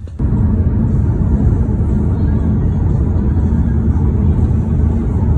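Road vehicle running, heard as a loud, steady low rumble that cuts in abruptly just after the start.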